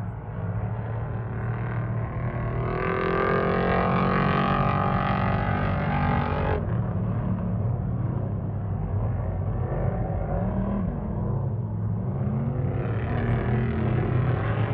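Off-road race vehicle engines running and revving, growing louder over the stretch. A higher engine note cuts off abruptly about six and a half seconds in.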